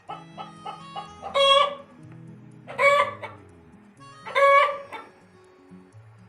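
A chicken calling: three loud, short clucking calls about a second and a half apart, over light plucked-guitar background music.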